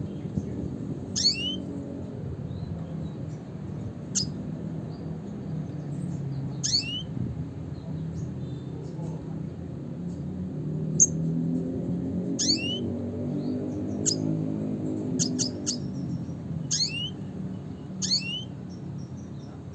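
Red siskin giving its call: about a dozen short, high chirps at irregular intervals, each a quick downward sweep ending in a brief upward curl, with a fast run of three about two thirds of the way through. A steady low murmur runs underneath.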